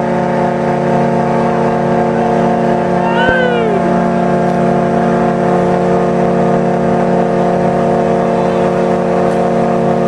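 A loud, steady horn blast of several pitches sounding together, held without a break and stopping abruptly near the end. A short shout rises and falls over it about three seconds in.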